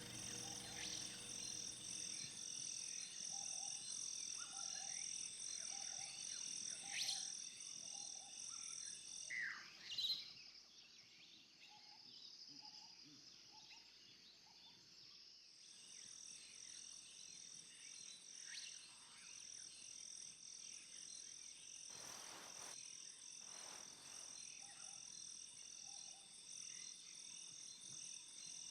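Nature ambience: a steady pulsing insect chorus with short runs of frog croaks and a few quick bird chirps. The high chorus cuts out for about five seconds in the middle, then returns.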